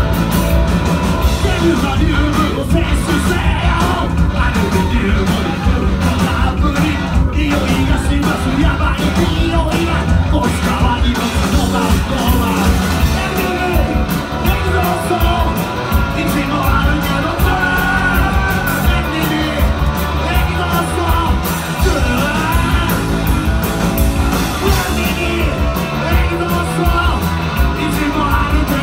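Rock band playing loud live music, with electric guitars, bass and drums under a shouted lead vocal, heard from within the audience.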